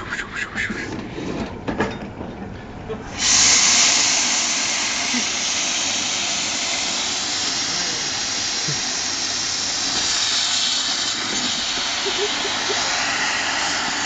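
Espresso machine steam wand blowing into a bucket of crushed ice: a loud steady hiss of steam that starts suddenly about three seconds in and runs on unbroken. A few knocks and clicks come before it.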